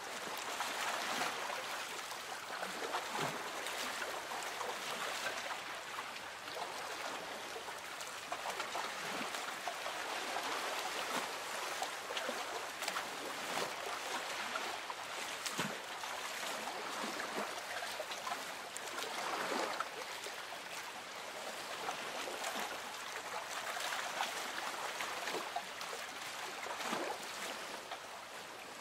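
Lake water gently lapping against a boat's hull, a steady wash broken by many small soft splashes.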